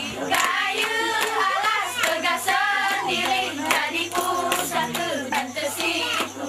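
A group of girls singing a mesekat song together in chorus, with sharp hand claps coming about twice a second over the singing.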